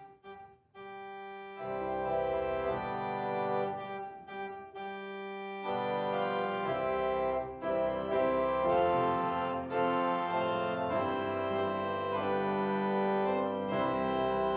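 Organ playing held chords that change every few seconds, starting after a brief pause about a second in.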